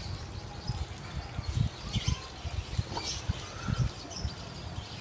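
Small birds chirping now and then, over a louder, irregular low thumping rumble.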